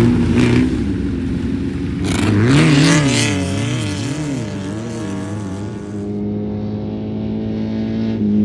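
Air-cooled Volkswagen Beetle flat-four of a Class 11 desert race car, revving up and down in quick surges about two seconds in, then running at a steady pitch.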